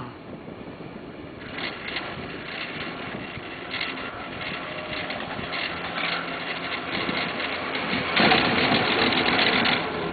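A 1996 Poma Italia detachable quad chairlift in motion under a rider: a steady running rumble with scattered short rattles, and a louder stretch of rushing noise from about eight seconds in until just before the end.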